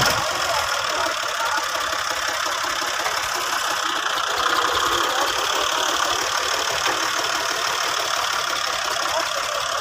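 Tractor diesel engines running together, a steady mechanical sound with no let-up.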